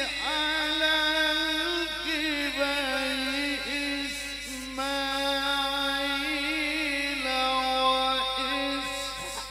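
A man's voice reciting the Quran in melodic tilawah style into a handheld microphone. He holds long, drawn-out notes broken by quick, wavering ornaments, then pauses briefly for breath just before the end.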